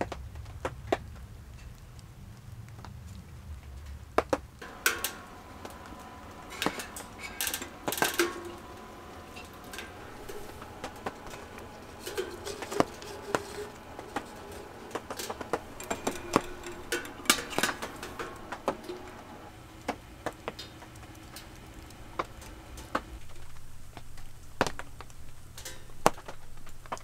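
Metal clinks, knocks and rattles as a metal box oven's door and wire racks are handled and a foil tart tin is set inside, busiest in the middle stretch. A low steady hum runs underneath.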